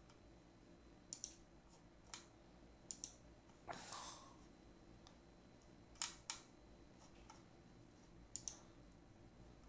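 Computer mouse buttons clicked several times in a quiet room, often in quick pairs like double-clicks. There is a short soft noise about four seconds in.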